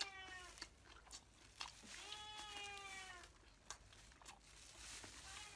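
Faint mouth sounds of chewing, scattered soft clicks, with two drawn-out high-pitched cries of about a second each: one right at the start and one about two seconds in.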